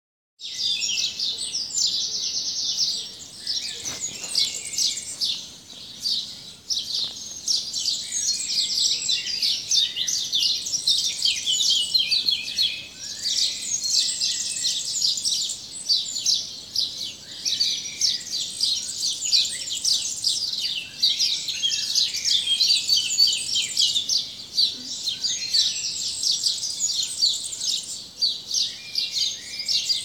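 Morning chorus of many birds chirping at once: a dense, unbroken mass of short high-pitched calls.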